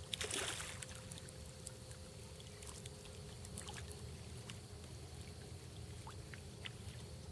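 Water around a kayak in a shallow marsh creek: a short splash just after the start, then faint scattered drips and small ticks over a low steady rumble.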